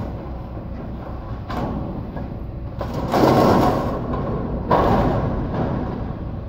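Long sheet-metal roofing panels sliding and rumbling over a corrugated metal roof deck, in loud surges about three seconds in and again near five seconds, over a steady low engine hum.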